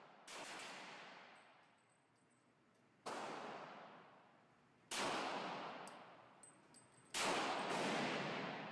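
Four pistol shots from a Glock 35 .40 S&W, fired slowly about two to three seconds apart. Each shot rings on and fades over about two seconds.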